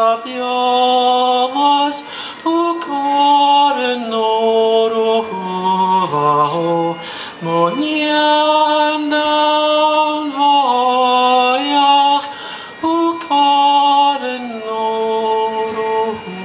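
A man singing a Scottish Gaelic lament unaccompanied, holding long notes one after another with short slides between pitches.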